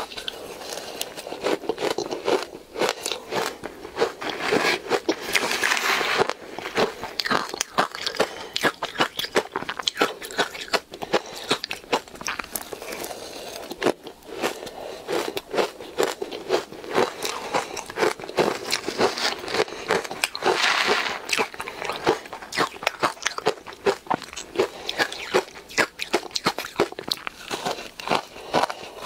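Close-miked crunching and chewing of soft, powdery ice dusted with matcha powder: repeated bites, each a dense run of crisp crackling crunches.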